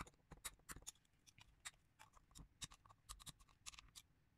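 Faint, irregular clicks and small scrapes of a metal nail tool and fingers working against a 3D-printed plastic mould housing to push it level.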